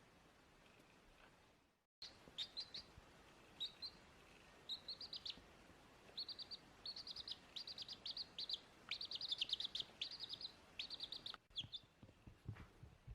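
Baby chick peeping: quick runs of short, high peeps in clusters, busiest in the middle of the stretch. The sound cuts out briefly about two seconds in.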